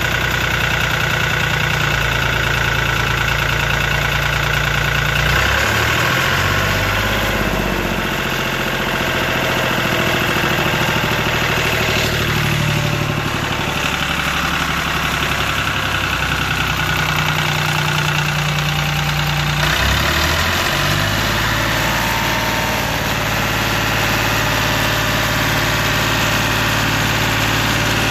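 Lister ST3 three-cylinder air-cooled diesel engine running steadily, not long after starting. Its low note shifts briefly about five seconds in and again about twenty seconds in.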